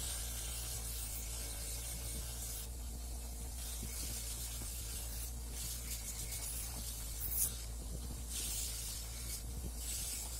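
A power tool's motor running with a steady low hum, with a hissing, scrubbing noise that swells and fades as it cleans the old factory siren's parts.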